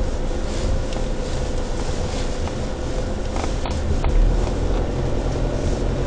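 Car driving slowly along a snow-covered road, heard from inside the cabin: a steady low rumble of engine and tyres, with two faint ticks about halfway through.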